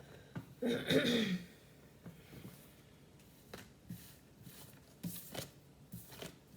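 A woman clearing her throat once, about a second in, followed by scattered soft clicks and rustles.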